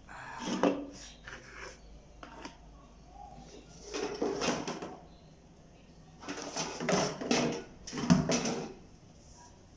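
Handling noises: about six short scraping, rustling bursts of roughly half a second to a second each, the loudest near the end.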